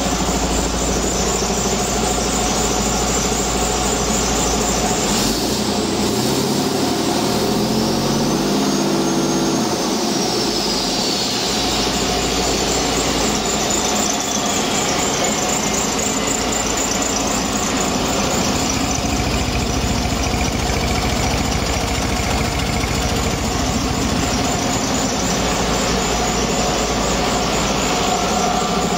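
Detroit Diesel DD15 inline-six truck diesel running on a test stand. About seven seconds in it revs up briefly, and a high whistle rises with it, then falls slowly over several seconds as the engine settles back to a steady idle.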